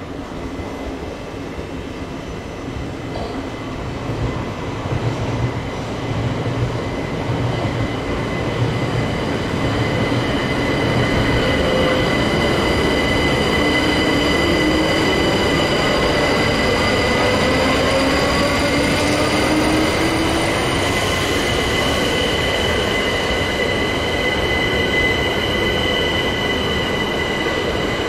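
London Overground Class 378 electric multiple unit running along a curved platform track, its wheels setting up a steady high-pitched squeal over the rumble of the running gear, growing louder as it draws close. Partway through, a lower whine falls in pitch as the train slows.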